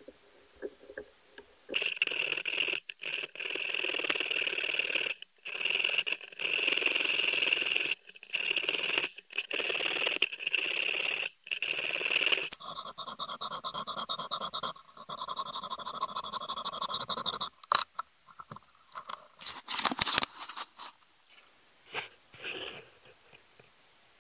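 A hand file rasping back and forth across a brass disc clamped in a bench vise, in uneven strokes of half a second to two seconds. In the second half the strokes take on a high, squealing ringing tone. A few sharp knocks follow near the end.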